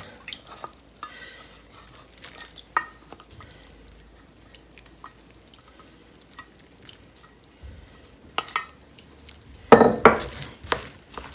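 Plastic rice paddle working through freshly cooked sushi rice in a bowl: faint scattered taps and soft scrapes, then louder scraping strokes near the end as the paddle cuts through the vinegared rice.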